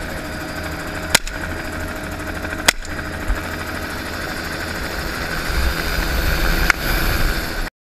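Three 12-gauge shotgun blasts firing buckshot, about a second in, near 3 s and near 7 s, over the steady drone of a Bell JetRanger helicopter's turbine and rotor heard through the open cabin door. The sound cuts off abruptly just before the end.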